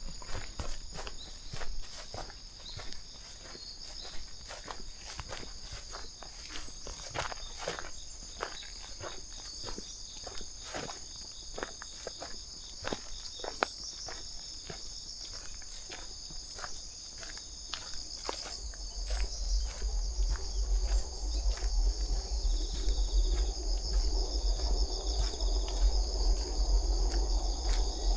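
Steady high-pitched chorus of insects, with regular footsteps of a person walking. About two-thirds through, a low rumble joins in and stays to the end.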